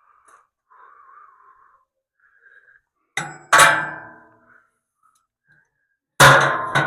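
Metal clangs: three hammer blows on the steel loader bucket, two close together about three seconds in and one near the end, each ringing on and dying away over about a second.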